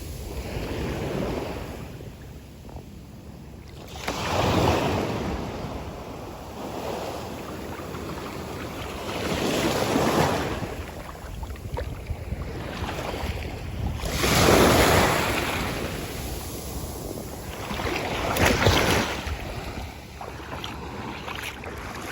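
Atlantic Ocean surf on a beach, a steady wash with four waves breaking in swells a few seconds apart, the loudest about two-thirds of the way through.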